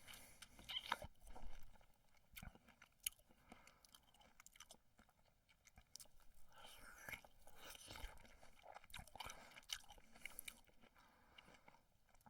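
Comic chewing and crunching sound effects: faint, irregular munches and clicks, busier for a few seconds past the middle.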